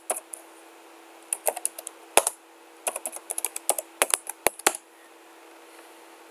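Typing on a computer keyboard: irregular runs of quick key clicks that stop a little before five seconds in, over a faint steady hum.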